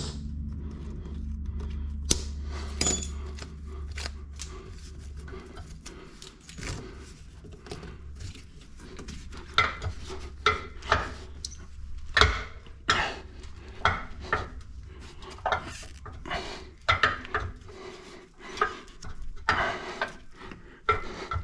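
Hand tools working on metal fittings: irregular clinks, knocks and scrapes of a wrench against stuck, rusted fuel-line fittings. A low steady hum underlies the first six seconds or so.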